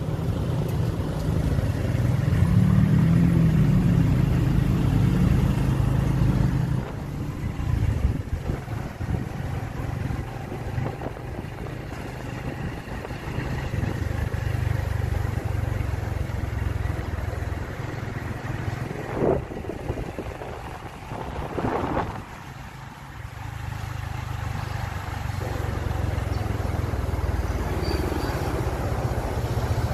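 Engine of a hired vehicle driving through city traffic, its low rumble rising and falling with speed. Two brief sharper sounds stand out about two-thirds of the way through.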